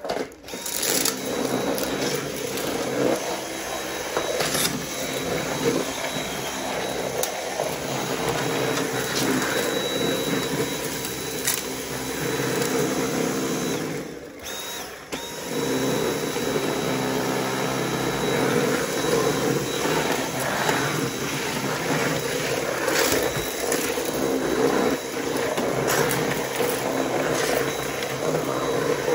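Dyson V8 cordless stick vacuum running steadily on a concrete floor, with scattered clicks and crackles as debris is sucked up. It dips briefly about halfway through.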